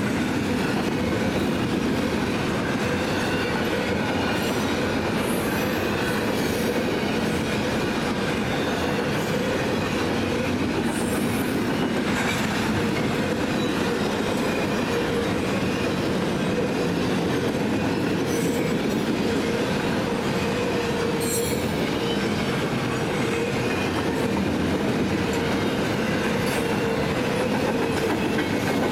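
Double-stack intermodal freight cars rolling past close by: a steady heavy rumble and clatter of steel wheels on rail. A thin steady wheel-squeal tone runs under it, and a few brief high screeches cut through now and then.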